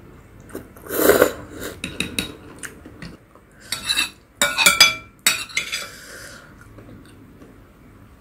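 Instant ramen noodles slurped about a second in, then a metal spoon scraping and clinking against a glass bowl several times, with short ringing tones, as it scoops noodles and broth.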